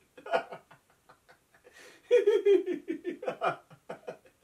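A man and a woman laughing together as a laughter-yoga exercise: a brief burst of laughter, then, about two seconds in, a long run of rhythmic 'ha-ha-ha' laughs that falls in pitch.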